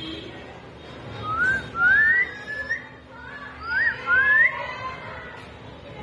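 Alexandrine parakeet whistling: a run of about eight short, rising whistle notes, some ending in a quick upward hook, from about a second in until about four and a half seconds in.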